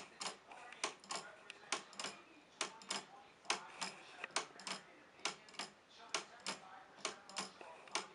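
Wooden-geared pendulum wall clock ticking: the wooden pallets of its anchor escapement striking the teeth of the wooden escape wheel. About two sharp ticks a second, falling in uneven pairs, a tick and tock close together and then a longer gap.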